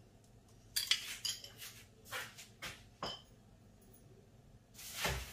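Metal spoon clinking and scraping against a wok of rice: a quick run of clinks about a second in, a few scrapes after, and a heavier knock near the end.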